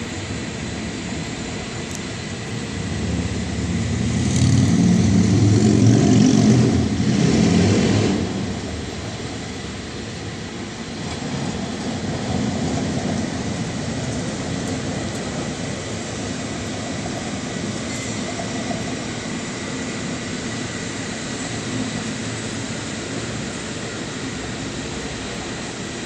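A vehicle passes on a city street, swelling from about three seconds in and fading away by about nine seconds, over a steady rumble of street traffic noise.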